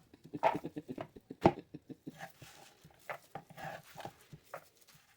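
Knife chopping food on a cutting board in irregular strokes, with one louder knock about a second and a half in.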